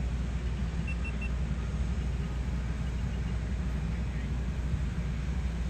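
Locomotive 5000's engine running at standstill, a steady low rumble. There are a few faint short high beeps about a second in.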